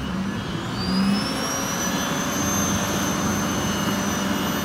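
Alexander Dennis Enviro400 double-decker bus engine revving hard under load, with a high whine that rises about a second in and then holds steady, as the bus tries to drive out of soft, wet mud.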